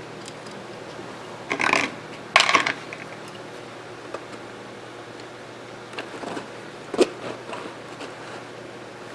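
Handling noises of a Mossberg 464 lever-action rifle being taken apart on a bench: two short scraping rattles about a second and a half and two and a half seconds in, then a few light clicks and one sharp click about seven seconds in, over a steady low hum.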